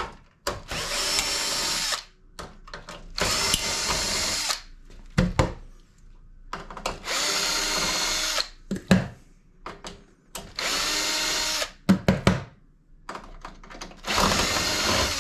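Power drill running in five short spells of about one and a half to two seconds each, backing out the door-hinge screws of a range hood, with small clicks and knocks between the spells.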